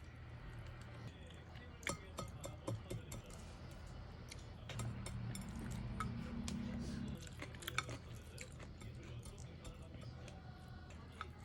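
Scattered light clinks and taps of cutlery on dishes over a low steady hum, the hum growing stronger for a couple of seconds about halfway through.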